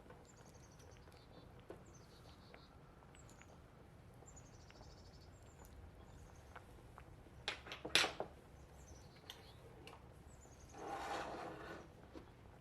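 A small bird singing faintly, repeating short runs of quick high notes, with a few sharp clicks, a louder knock about eight seconds in and a brief rustling burst near the end.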